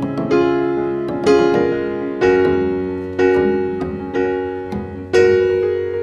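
Background piano music: soft chords struck about once a second, each one fading before the next.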